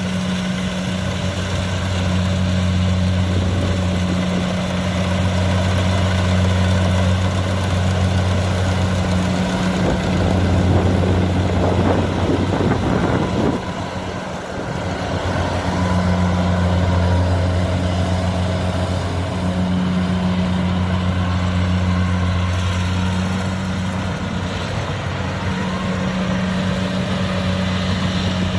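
Heavy harvesting machine's diesel engine running steadily with a low, even hum. About halfway through, a louder noisy rush rises over it for a couple of seconds.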